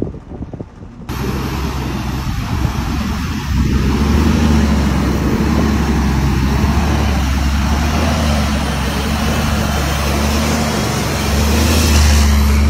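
Heavy armored vehicle on the move: a steady low engine drone under loud rushing road and wind noise. It grows louder about four seconds in and again near the end.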